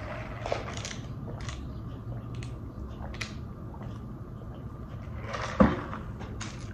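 Faint clicks and handling sounds while sipping from a large paper fountain-drink cup through a straw, then a single thump about five and a half seconds in as the cup is set down on the table.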